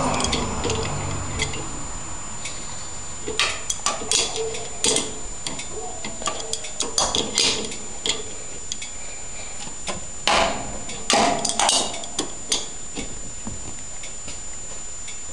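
Metal wrench on a garden tractor's oil drain plug and steel frame: scattered sharp clicks and knocks as the plug is worked loose, with a cluster of louder knocks about ten to twelve seconds in.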